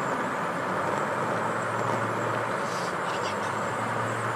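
Suzuki GSX-S1000GT motorcycle on the move: steady wind and road rush over a low, even engine hum.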